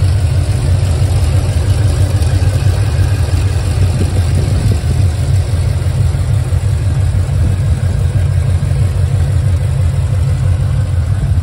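Ford Mustang Shelby GT500's supercharged V8 idling steadily, heard close up from the open engine bay.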